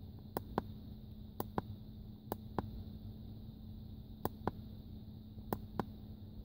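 Scroll button of a handheld Konnwei OBD2 scan tool pressed five times at irregular intervals, each press a pair of sharp clicks about a quarter second apart, as press and release. A steady low hum runs underneath.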